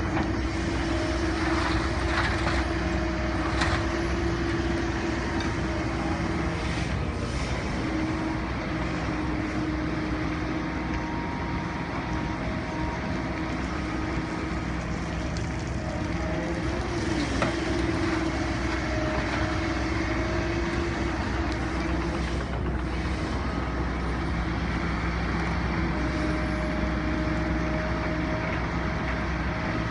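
Kobelco SK210LC-9 excavator working: its diesel engine runs steadily under load, and a hydraulic whine comes and goes as the machine digs, swings and dumps. There are a few short knocks along the way.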